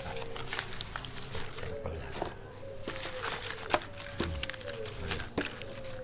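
Paper record tags being handled and shuffled in a pile: scattered light clicks and rustles. Behind them a faint held tone dips slowly in pitch several times over a low steady hum.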